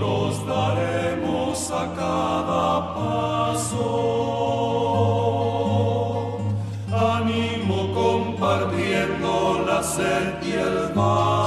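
Instrumental break in a slow Spanish-language ballad: sustained chords over held bass notes that change every second or two, with a few brief high accents and no sung words.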